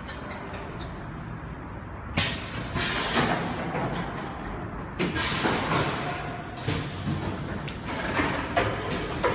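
Automatic screen printing machine running: a steady low hum, then from about two seconds in, sudden loud hisses and clunks recurring every second or two as its pneumatic print heads and platens cycle.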